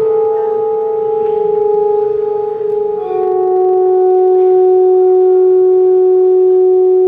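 Live band music, amplified through a hall PA: a held, droning chord that steps down to a lower chord about three seconds in.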